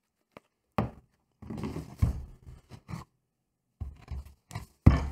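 Crusty rye sourdough loaves handled over a wooden cutting board: irregular crackling and rustling as the crust is broken and rubbed, with a few dull knocks of bread against the board.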